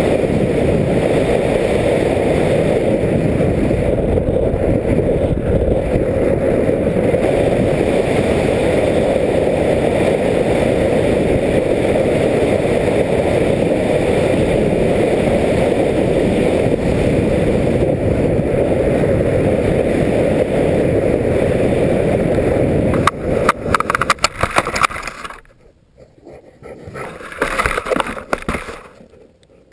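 Onboard sound of a small RC plane in flight: a steady rushing noise of air and motor. About 23 seconds in, a cluster of knocks and rough scraping as it touches down and ploughs through snow, then a short pause, another brief scrape, and it goes quiet.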